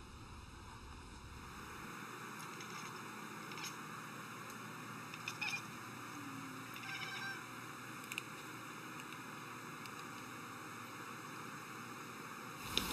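A cat chattering at something it is watching: a few short, faint chirping calls spread over several seconds, above a steady hiss.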